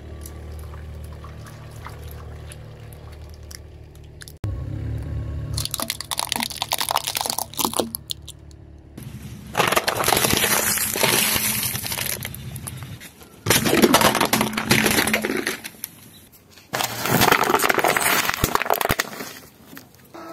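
A car tyre rolling over and crushing plastic cups and containers of liquid, with crackling, crunching plastic and splashing liquid. It comes in several separate spells of crushing noise, after a low steady hum in the first few seconds.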